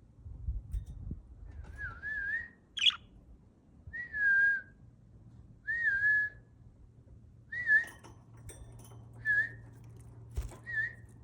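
Pet lovebirds whistling: about six short whistled notes, each with a slight wobble in pitch, and one sharp high chirp about three seconds in.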